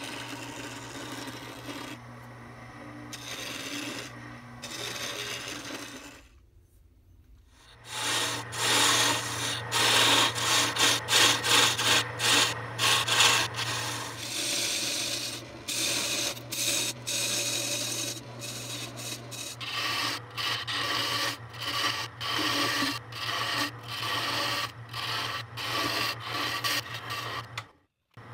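Wood lathe spinning a hardwood mallet handle while a hand-held turning tool cuts it: a steady motor hum under rough scraping cuts and quick chattering ticks. The sound drops out briefly about six seconds in, then comes back louder.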